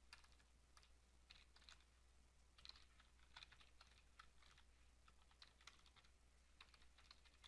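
Faint computer keyboard typing, in short runs of keystrokes with brief pauses between them.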